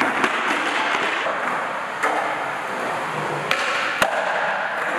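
Skateboards on a smooth concrete floor: wheels rolling with a steady hiss, broken by a few sharp clacks of boards popping and landing, the loudest two close together about three and a half to four seconds in.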